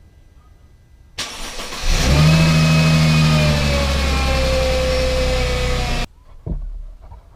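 Mercedes SLK280's 3.0-litre V6 cranked by the starter and catching after under a second, then running at a fast idle that slowly settles before it stops abruptly about six seconds in. It starts readily on a freshly installed battery.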